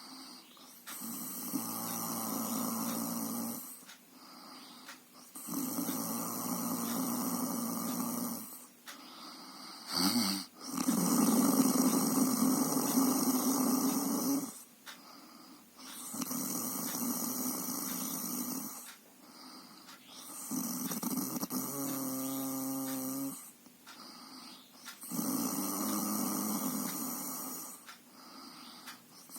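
Snoring, one long breath about every five seconds, six in all; the loudest comes just before halfway, and one about two-thirds through takes on a clear pitched tone.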